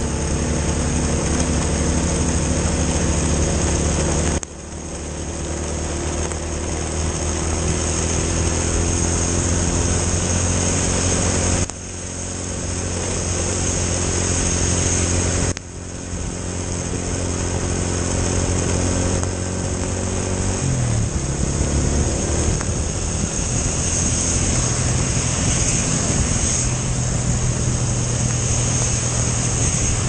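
Honda automatic scooter's engine running under way, heard from the rider's seat with a steady hiss of wind and wet road underneath. Its sound drops suddenly three times and builds back up, and its pitch falls about twenty seconds in as it slows.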